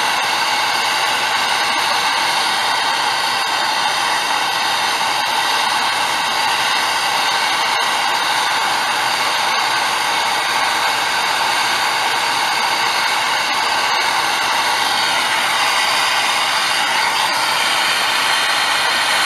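Handheld gas torch flame giving a steady hiss while brazing a copper refrigerant line joint at an air-conditioner condenser's service valve. The tone shifts slightly about three-quarters of the way through.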